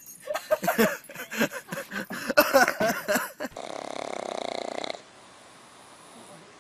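A loud jumble of sharp knocks and short pitched cries, then a black pug asleep on its back snoring. About three and a half seconds in there is one drawn-out snore lasting over a second, followed by a quieter pause between breaths.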